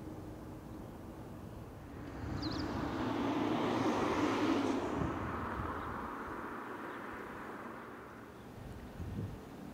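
A passing vehicle's engine noise, swelling about two seconds in, loudest around four seconds, then fading away.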